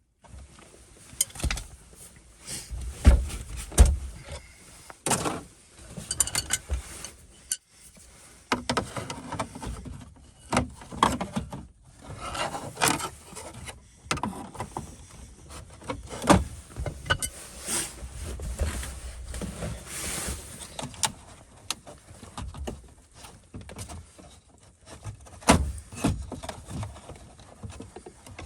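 Irregular clicks, knocks and light rattles of hand tools and metal parts being worked at a car dashboard's radio opening, with a few louder thumps.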